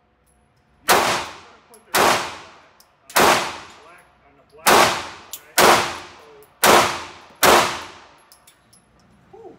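Semi-automatic pistol fired seven times, roughly a second apart. Each shot has a short echoing tail from the enclosed indoor range.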